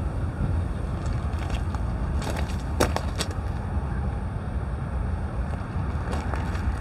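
Footsteps crunching on gravel track ballast, a few sharp crunches about two to three seconds in, over a steady low rumble.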